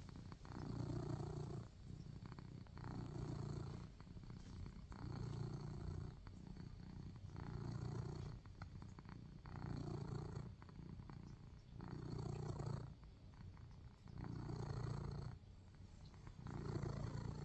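A domestic cat purring close up, the purr swelling and easing with each breath in and out, about one breath every two seconds.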